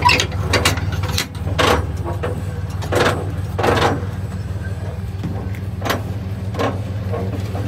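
Pickup truck engine idling steadily, with a series of metal clanks and rattles from a gooseneck trailer hitch and its safety chains being coupled.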